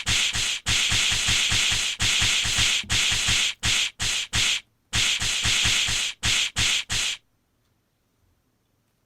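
Added punch-barrage sound effect for a cat's rapid paw swats: fast whooshing hits, about five a second, in several runs with short breaks, cutting off suddenly about seven seconds in.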